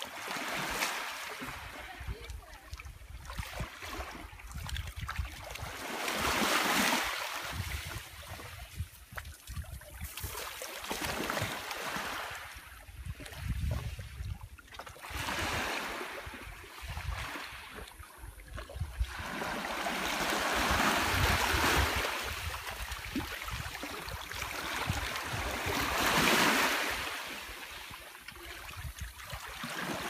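Small sea waves washing in over a pebble shore, swelling and fading every several seconds, with wind rumbling on the microphone.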